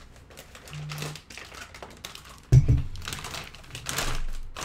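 Light clicking and tapping, with one heavy thump about two and a half seconds in.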